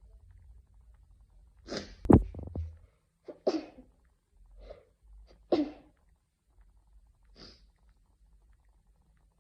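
A person sneezing in a fit of about five sneezes, a few seconds apart. The loudest comes about two seconds in, and the last two are softer.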